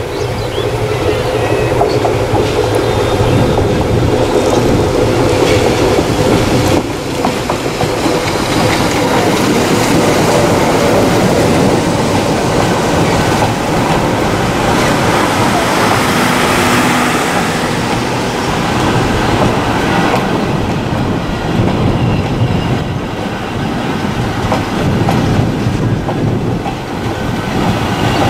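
Bangladesh Railway diesel locomotive running past close by, its engine heard in the first few seconds, followed by a long line of passenger coaches rolling past with a continuous clatter of wheels over the rail joints.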